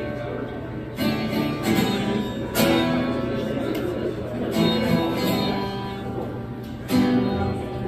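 Acoustic guitar strummed in an instrumental passage, its chords ringing between a firm strum every couple of seconds.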